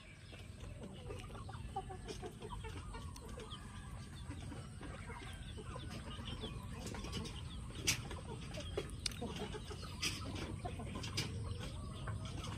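Chickens clucking in short, repeated calls over a low steady rumble. A few sharp clicks break in, the loudest about eight seconds in.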